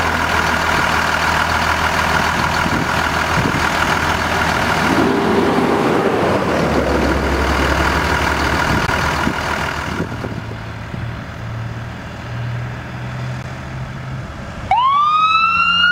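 Ford F650 ambulance's engine running steadily at idle, its low note changing about six seconds in; after about ten seconds it is heard farther off and quieter. Near the end its siren starts with a rising wail.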